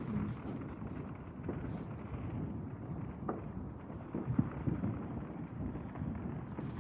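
Many distant fireworks going off at once, a steady low rumble of booms with a few faint pops standing out.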